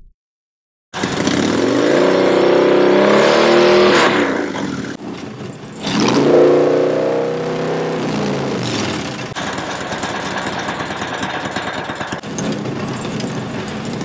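Harley-Davidson Dyna Low Rider S's Twin Cam 110 V-twin running through Vance & Hines Short Shots Staggered exhaust pipes, starting about a second in. It is revved twice, each rev rising and falling, then settles to idle.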